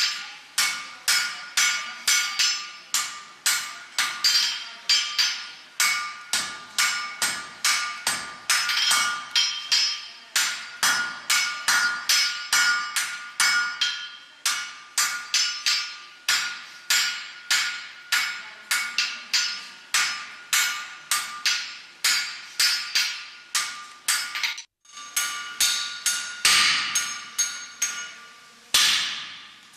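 Blacksmith's hammer forging iron on an anvil: a steady run of blows about two a second, the anvil ringing between them. There is a short break near the end, then a few more blows.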